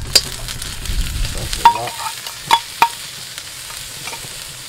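Blended onion sizzling in hot oil and sliced garlic in a black wok over charcoal, a steady frying hiss as the onion starts to sweat. A few sharp metallic clinks sound in the first three seconds.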